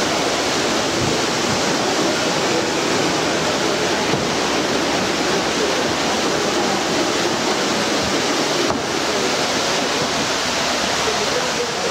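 Steady, even hubbub of a busy exhibition hall, with no single sound standing out.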